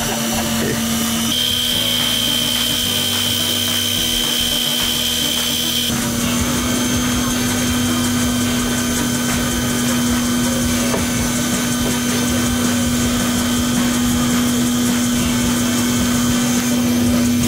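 Steady mechanical motor hum holding one pitch, with its tone shifting abruptly about a second in and again about six seconds in, over a hiss of noise.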